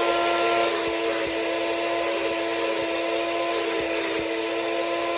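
Fuji Spray HVLP turbine running steadily with a fixed-pitch whine, feeding air to the GXPC spray gun, while short high hisses of air come in three pairs as the gun's trigger is pulled to test it.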